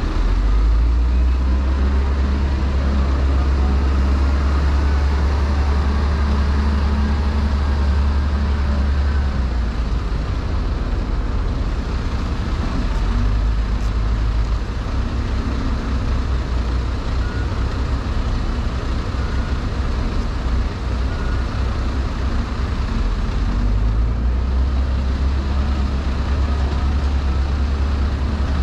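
Heavy diesel engine of a wheel loader running and driving, a steady deep rumble that swells for the first several seconds and again near the end. A faint backup alarm beeps a few times in the second half.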